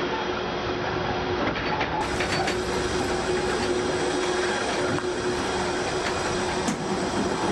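Steady machinery noise: a constant low hum under a rattling mechanical drone.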